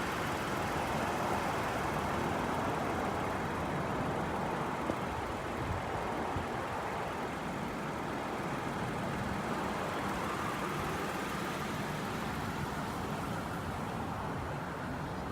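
Steady outdoor background noise at night: an even hiss with a low rumble, the kind of wash that distant road traffic and light wind make, with no distinct events.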